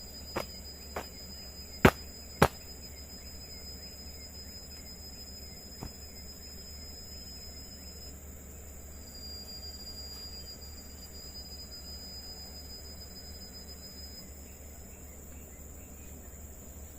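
Night insects trilling steadily at a high pitch in the forest, with a few sharp clicks in the first seconds, the two loudest about two seconds in.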